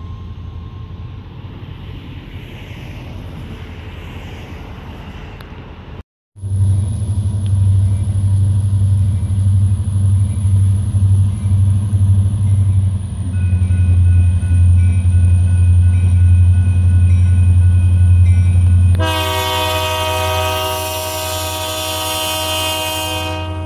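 A freight train of container cars rumbling past. After a cut, a Union Pacific diesel road-switcher locomotive comes closer with its engine running in a loud, low drone and a thin high whine above it. About 19 seconds in, its horn sounds one long blast of about four seconds.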